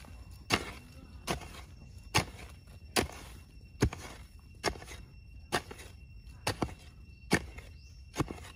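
Hand hoe striking into sandy soil over and over as a hole is dug: about ten sharp chops at a steady pace, a little more than one a second.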